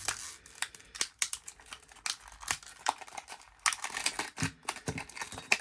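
Small padlock's packaging being cut open with a knife and handled: irregular sharp clicks, snips and crinkles.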